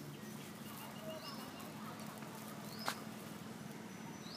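Birds calling: a short rising chirp repeats roughly every second and a half, with a quick run of high notes about a second in. A single sharp click about three seconds in is the loudest sound.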